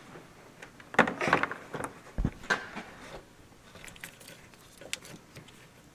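Handling noises as a headlight assembly with its HID wiring is carried and set down: a few light plastic clicks and knocks with rustling, and a single low thump a little after two seconds in.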